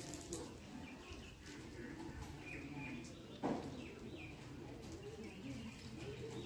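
Pigeons cooing steadily, with small birds chirping now and then and a single sharp knock about halfway through.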